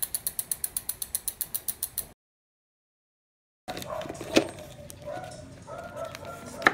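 A fast ratcheting click, about ten clicks a second, that stops about two seconds in, followed by a second and a half of dead silence. Then a rusty old Shimano bicycle chain clinks and rattles against a plastic container as it is coiled into it, with a couple of sharp clacks.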